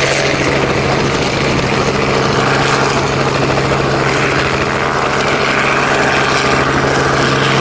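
A propeller aircraft's engine running loud and steady at a constant pitch.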